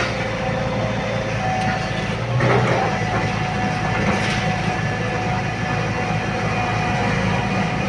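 Hitachi Zaxis 110 hydraulic excavator's diesel engine running steadily under load, with a steady hydraulic whine over the low engine hum. A brief louder rush of noise comes about two and a half seconds in.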